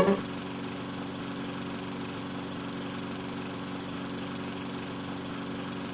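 Lawn mower engine running steadily at one even pitch.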